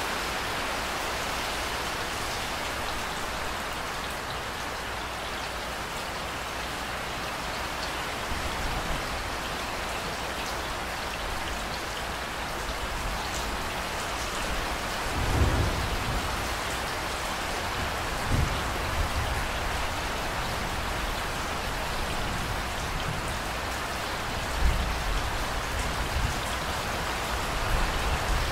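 Steady rain falling, an even hiss of drops. A few short low rumbles break through about halfway and again near the end.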